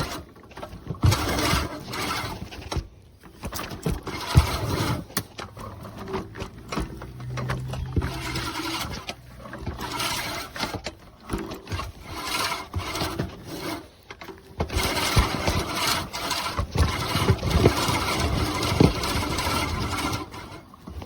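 Earthwise 16-inch seven-blade push reel mower cutting grass: the spinning reel whirs with many small clicks as it is pushed along, in stretches broken by a few short pauses.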